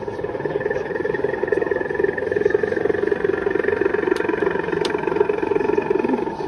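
Model narrow-gauge armoured locomotive running along the layout with a steady engine-like drone, with two faint clicks about four and five seconds in.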